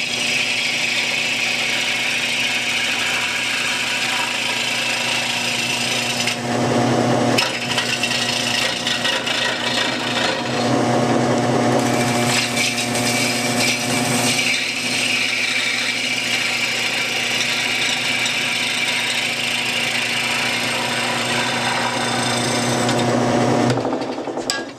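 Homemade wood lathe running with a steady motor hum while a gouge hollows a spinning green-wood bowl, a continuous hissing scrape of shavings peeling off that swells and eases as the cut goes deeper. Near the end the sound cuts off.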